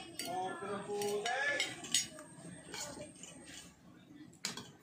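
Metal cutlery clinking against a ceramic plate and bowl: a few sharp, scattered clinks, the loudest about two seconds in, with voices talking over the first half.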